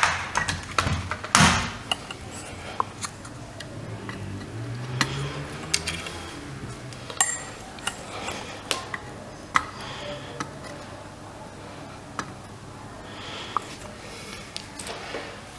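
Soldering iron and small metal tools clicking and tapping against a TV power-supply circuit board while a suspected shorted diode is desoldered. Scattered sharp clicks, with a cluster in the first two seconds and a faint low hum in the middle.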